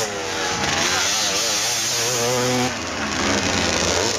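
Vintage motocross motorcycle engines revving, their pitch rising and falling as the bikes climb the jump and ride the track, with a short drop in loudness about three seconds in.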